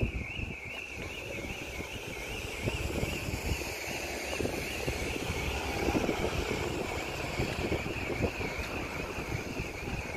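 Railway level crossing audible warning sounding continuously: a warbling alarm tone rising and falling about three times a second. It sounds while the barriers are down, the warning that a train is due.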